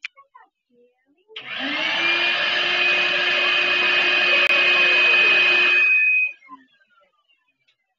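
Stainless-steel canister shop vacuum switched on about a second in, its motor whine rising to a steady pitch, running for about five seconds, then switched off and winding down with a falling whine.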